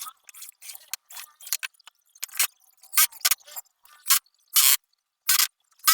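A string of short, irregular clicks and scrapes with silent gaps between them, about a dozen strokes, the loudest around three seconds in and near the end.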